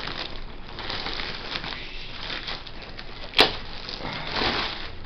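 Laptop packaging rustling and scraping as the laptop is pulled out of its box, with small clicks throughout and one sharp click about three and a half seconds in.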